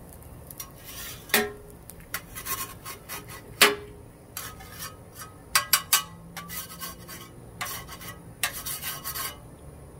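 Metal griddle spatulas clanking and scraping. There are two sharp metallic clanks with a brief ring, about a second and a half in and near four seconds, then several runs of short rasping scrapes.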